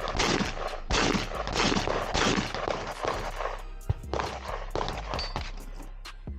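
Background music with a steady beat and deep bass, with gunshots among it; one sharp crack stands out a little after halfway.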